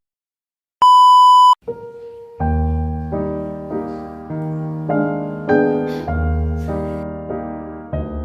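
A single loud, steady electronic beep lasting under a second, then background music on piano or electric piano with a low bass begins and carries on, new chords sounding roughly every half second to second.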